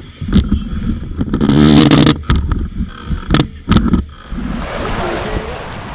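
Wind buffeting the microphone and water rushing and hissing past a racing yacht heeled in choppy water, with several sharp knocks. The buffeting is loudest about 1.5 to 2 seconds in, and an even hiss of spray takes over from about 4 seconds in.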